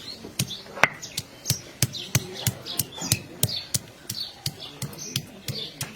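Steady run of knocks, about three strikes a second, each with a dull thud, typical of chopping or pounding food on a hard surface while cooking. Faint high chirps come and go behind it.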